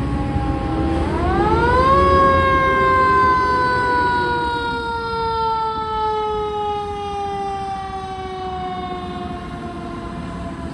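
Fire apparatus mechanical siren (Federal Q-type) winding up about a second in, then coasting slowly down in pitch for several seconds, and winding up again at the very end. A low engine rumble from the truck runs underneath.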